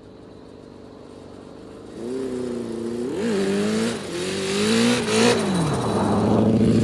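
An off-road vehicle's engine running quietly, then revving up and down from about two seconds in, with two quick blips of the throttle, before dropping back to a lower steady run near the end. A rushing noise rides over the revving in the middle.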